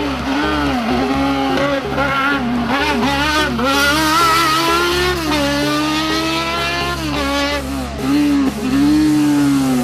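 Kawasaki ZX-12R inline-four motorcycle engine in a Fiat 500 race car, revving high. Its pitch climbs and falls again and again as the car accelerates and slows through a cone slalom.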